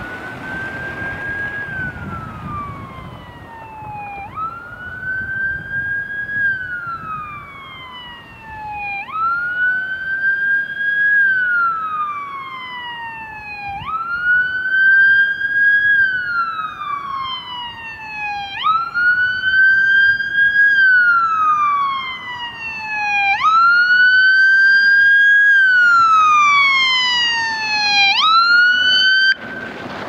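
An Essex-Windsor EMS response vehicle's siren sounding a wail as it approaches. It rises quickly and falls slowly, repeating about every four and a half seconds and growing louder, then cuts off suddenly near the end.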